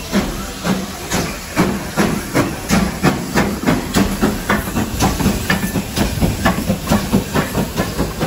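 GWR 4575 class prairie tank engine No. 5526 pulling away slowly under steam: sharp exhaust chuffs at about two to three a second, quickening slightly as it gathers speed, over a steady steam hiss.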